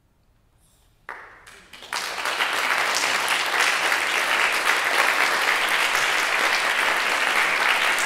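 Near silence, then a small audience breaks into applause: a first burst of claps about a second in, then steady clapping from about two seconds in.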